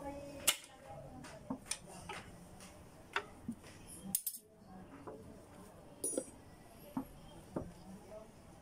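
A screwdriver clinking and tapping against the shift rails inside the open top of an Isuzu C240 manual transmission case as it is being dismantled. Sharp, scattered metal clinks come about once a second.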